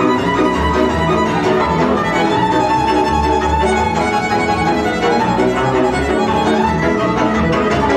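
Hungarian folk string band playing a Kalotaszeg tune live: a fiddle carries the melody over viola, cimbalom and double bass accompaniment.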